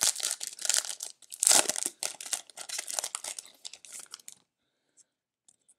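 Plastic wrapper of a cello pack of football trading cards being torn open and crinkled, a dense crackling for about four seconds that stops suddenly.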